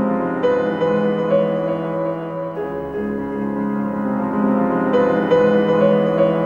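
Background music: held keyboard chords that change every couple of seconds.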